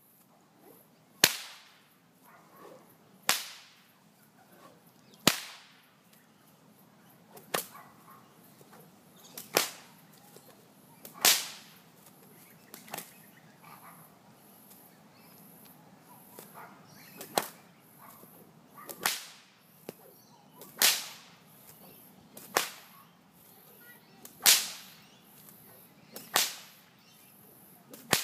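A long whip cracked again and again, a sharp crack about every two seconds, with a pause of a few seconds midway.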